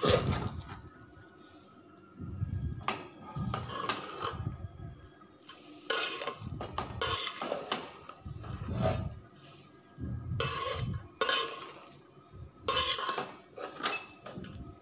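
A spoon scraping and clinking against the sides of a metal cooking pot in a dozen or so short strokes, with brief pauses between them, as cooked rice biryani is folded and mixed.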